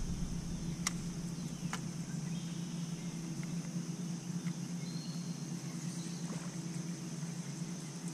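Steady low electric hum from a bass boat's bow-mounted trolling motor, under a steady high insect drone from the trees. There are two light clicks, about one and two seconds in.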